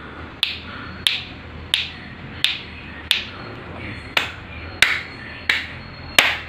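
Sharp hand claps, about ten in a steady rhythm roughly two-thirds of a second apart, triggering a sound-activated clap switch that toggles a light bulb on and off.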